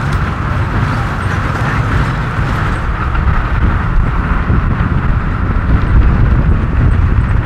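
Bus driving along a dirt road, heard at an open window: steady engine and road rumble with wind rushing past, growing a little louder in the second half.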